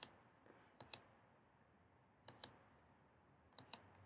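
Faint computer mouse clicks, mostly in quick pairs, three or four times, as dialog items are selected.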